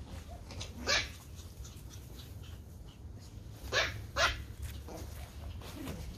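Small Pomeranian dogs yapping: one sharp, high yap about a second in, then two quick yaps close together near the middle.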